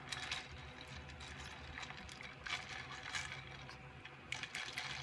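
Small dog eating from a bowl: short bursts of crunching and clicking, a few times, as it chews and its muzzle works in the bowl.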